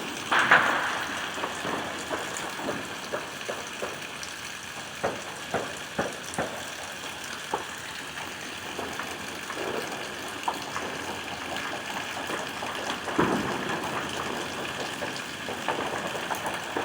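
Steady rain hiss with scattered distant bangs and pops from New Year's fireworks and gunfire, a louder bang about half a second in and another around thirteen seconds, and a quicker run of pops near the end.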